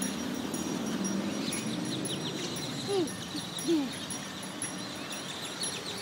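A large flock of blackbirds chattering: many overlapping short chirps and squeaks. Two short low sliding sounds stand out about three seconds in, over a steady low hum.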